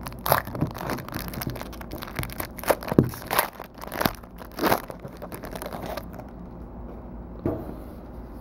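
Plastic shrink-wrap crinkling and tearing as a sealed trading-card box is unwrapped and opened, a busy run of sharp crackles and rustles that dies down about six seconds in, with one more crackle later.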